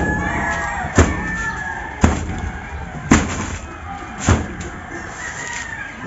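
Dried seaweed being packed down into a woven sack: a dull thud about once a second, five in a row.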